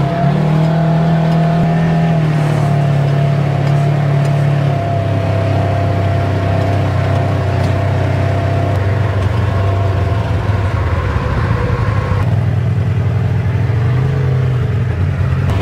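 Polaris RZR Trail S 1000 side-by-side's twin-cylinder engine running as the machine drives along a rough dirt trail, its note rising and falling a little with the throttle. The sound changes abruptly about twelve seconds in.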